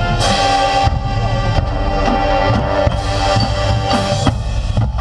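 High school marching band playing its competition show: brass holding sustained chords over a drumline, with regular drum strokes.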